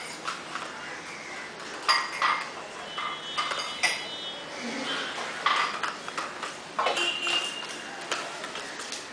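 A metal food bowl clinking and ringing briefly a couple of times, amid scattered light knocks and taps as kittens play with things on a tiled floor.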